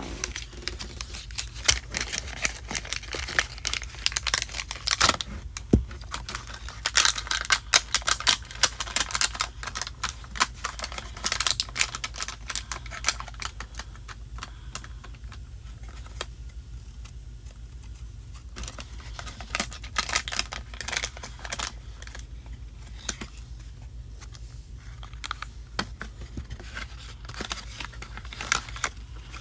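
Quick, irregular clicking and tapping in bursts, busiest in the first half and thinning out around the middle, over a steady low hum.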